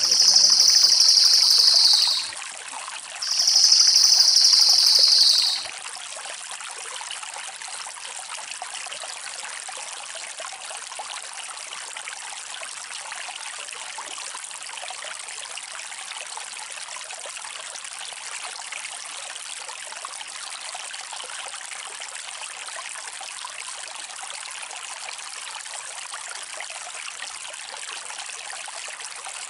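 Two fast, high rolling trills of about two seconds each, a second apart, near the start: the rapid 'roll' call of a crested jay (cililin). After them there is only a steady sound of trickling water.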